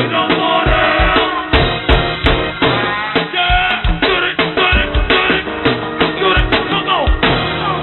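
Go-go band playing live, with a drum kit keeping a steady, busy beat of kick, snare and rimshot hits under pitched instrument lines. It is a muffled, low-fidelity PA tape recording.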